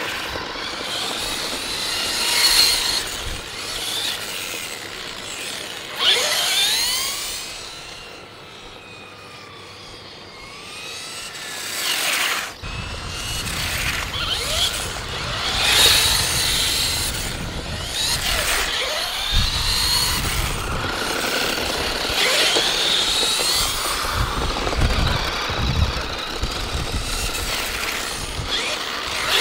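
Whine from the electric motors of radio-controlled cars, a drift car and a monster truck, sweeping up and down in pitch again and again as they are throttled on and off. From about halfway, wind rumbles on the microphone.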